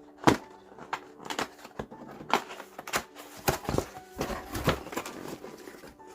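Cardboard box of a desk lamp being opened and its packaging handled: a string of sharp clicks and knocks, with a denser stretch of crinkling about halfway through.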